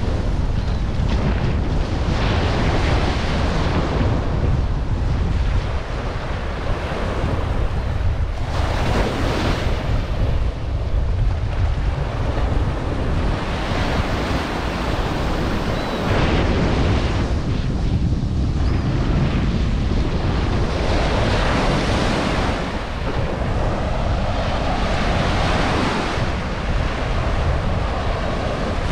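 Ocean surf washing onto a sandy beach, the wash swelling and easing every few seconds, with wind buffeting the microphone as a steady low rumble.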